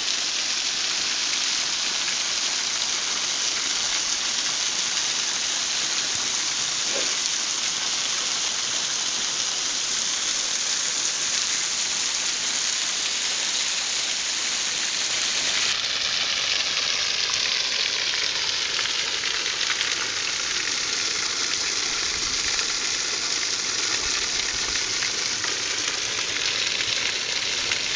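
Waterfall splashing close by: a loud, steady rush of falling water, its tone shifting slightly about halfway through.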